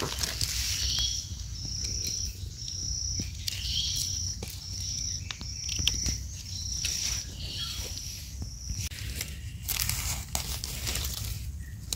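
Hands and a small knife working in dry leaf litter: rustling, crackling and scraping as mushrooms are dug and cut from the soil, with a louder rustle near the end. A high chirp repeats about once a second in the background.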